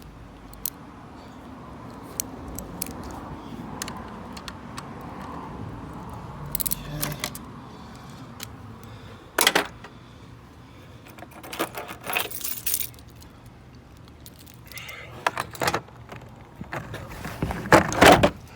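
Keys jangling and clinking in several short bursts, the loudest near the end.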